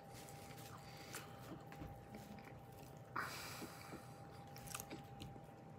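Quiet room with a faint steady high-pitched tone and scattered soft clicks, and a short rustle a little after three seconds in.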